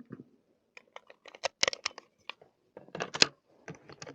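Handling noise: a run of quick clicks, rattles and rustles from gear being handled, with a denser cluster about three seconds in. This fits restocking ammunition after running out.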